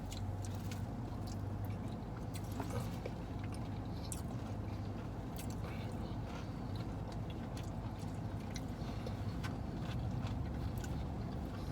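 Person chewing a mouthful of a KFC mashed-potato bowl with crispy popcorn chicken, with small scattered clicks, over a steady low hum.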